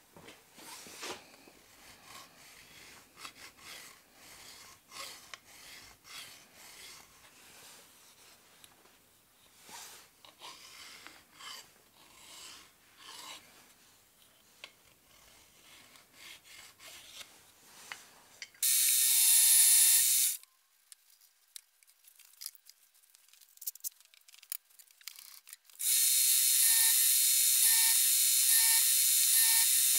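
A hand file rasping on aluminium angle in short, quiet strokes. Near the end a milling machine starts up with a loud, steady high-pitched whine, runs for about two seconds and stops. It starts again a few seconds later, with its end mill cutting the aluminium angle.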